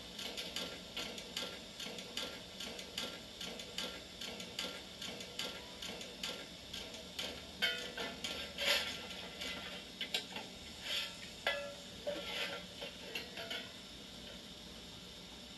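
Model steam train running, a rhythmic clicking about two to three times a second that turns uneven partway through and stops near the end.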